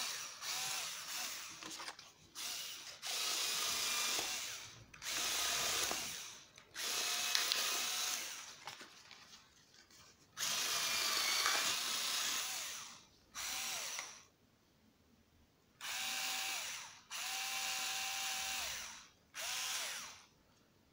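PROTECO 3.6 V cordless screwdriver with its rotary paper-cutter attachment, switched on and off in about ten short bursts of one to two seconds; the motor whine rises at each start and drops away at each stop, while the cutter wheel cuts through paper.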